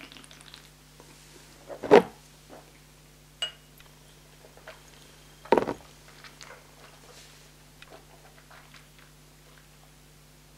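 Mouth and breath sounds of a man holding a sip of whisky in his mouth: two short, loud breathy noises, about two seconds and five and a half seconds in, with faint lip and mouth clicks between them. There is a light clink about three and a half seconds in, over a steady low hum.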